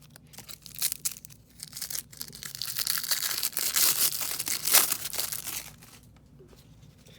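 A trading-card pack being torn open by hand and its wrapper crinkled, a run of rustling and crackling lasting about five seconds that fades out near the end.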